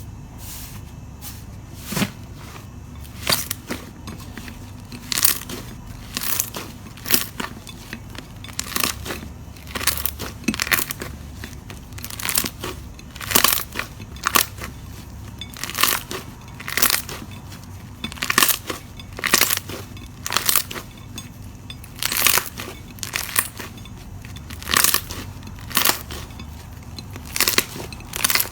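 Crunchy slime being pressed and squeezed by hand, crackling and crunching in repeated presses about once a second, over a steady low hum.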